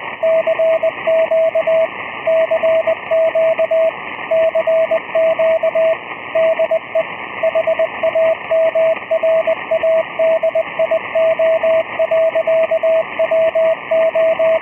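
Morse code (CW) sent as a single steady tone, keyed in short and long elements throughout, over a steady bed of radio receiver hiss.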